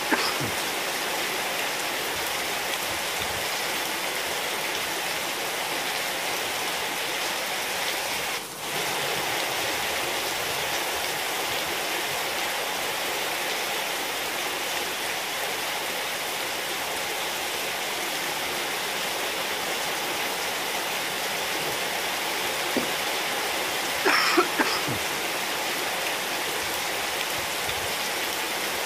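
Steady rain falling on a wet tiled courtyard floor and potted plants: an even hiss of drops with no letup. A short cluster of sharper, louder sounds comes about three-quarters of the way through.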